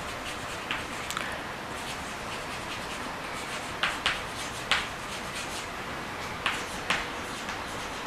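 Chalk writing on a blackboard: a string of short, scratchy chalk strokes and taps over a steady hiss, with the louder strokes coming in the middle and again later.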